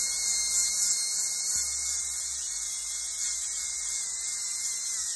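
Rotary sanding disc spinning against a cast-iron drill press part, a steady high whine over a hiss of abrasion.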